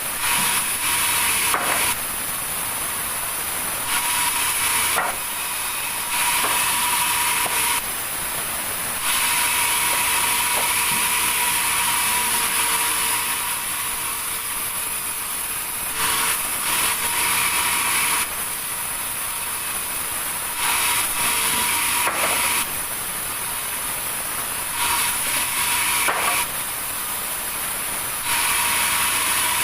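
Sawmill saw cutting wood: a steady machine noise that grows louder in repeated stretches of one to four seconds as the blade works through the log.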